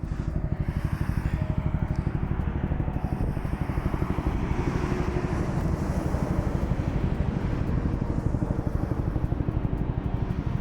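Helicopter rotor chopping steadily with a fast, even pulse over the turbine's rushing noise.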